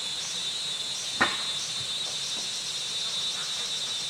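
Steady high-pitched insect chorus, with a single sharp click about a second in.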